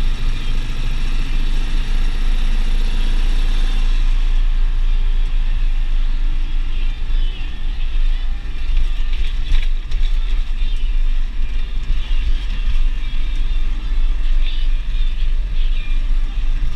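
Deutz DX 4.70 tractor's air-cooled diesel engine running while driving, heard loud inside the cab.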